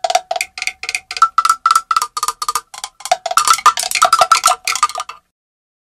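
Cartoon-style comic sound effect: a quick run of short, pitched percussive knocks, about six a second, hopping between a few notes like a little tune. It stops about five seconds in.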